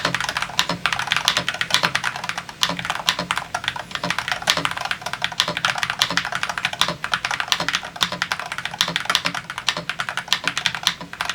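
Fast, continuous typing on an Akko TAC75 HE mechanical keyboard with magnetic (Hall-effect) switches: a dense, unbroken run of clacky keystrokes.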